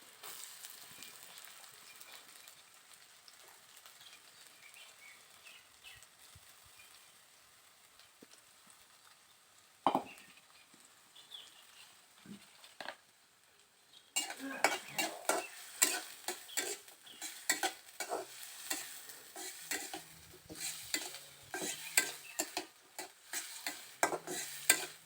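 Sliced onions frying in hot oil, faintly sizzling at first. From about halfway through, a spatula scrapes and knocks against the pan over and over as the onions are stirred.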